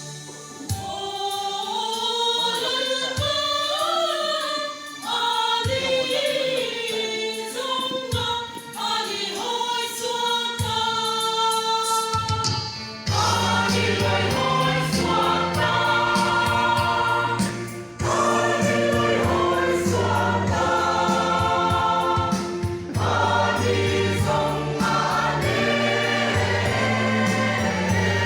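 Gospel song sung by a choir. About thirteen seconds in, bass and a steady beat join the singing.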